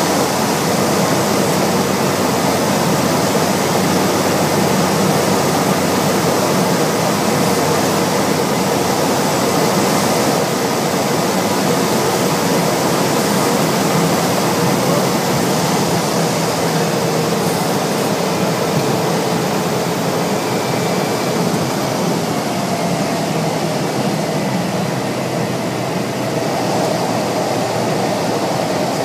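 Cabin noise inside a Cessna 208B Caravan through final approach, touchdown and rollout. The Pratt & Whitney PT6A turboprop and its propeller run with a steady hum and rush of air, and the noise eases a little near the end.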